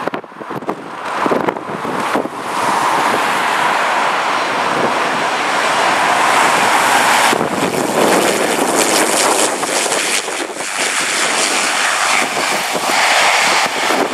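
BAe Jetstream twin turboprop landing, its Garrett TPE331 engines and propellers making a steady loud noise that grows louder and fuller about seven seconds in, around touchdown. Wind gusts hit the microphone in the first couple of seconds.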